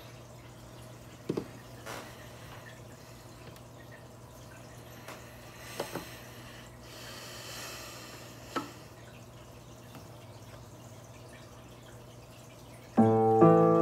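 A low steady hum with a few soft clicks and taps, then, about thirteen seconds in, an electronic keyboard sounds a loud sustained chord.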